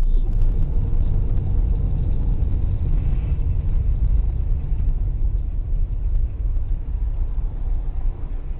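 Car on the move: a steady low rumble of engine and road noise with no distinct events.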